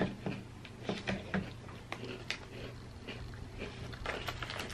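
Close-up snack eating: scattered small crunches and clicks of chewing and handling snacks at irregular times, over a faint steady low hum.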